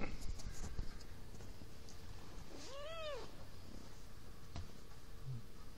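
A young cat meows once about halfway through, a single call that rises and then falls in pitch and lasts well under a second. A short light click comes near the end.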